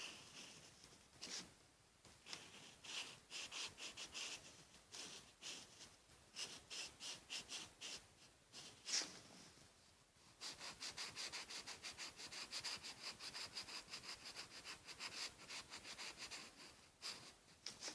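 Faint scratching of a colouring tool on paper in back-and-forth shading strokes. The strokes come in scattered bursts at first, then a steady run of about five strokes a second from about ten seconds in.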